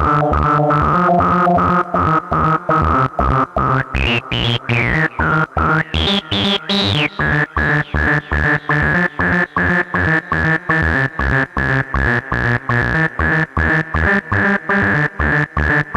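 PAiA Fatman analog synthesizer playing a repeating sequence of notes that turn into a fast pulse of short, chopped notes about two seconds in, with a high tone sweeping up and down for a few seconds near the middle.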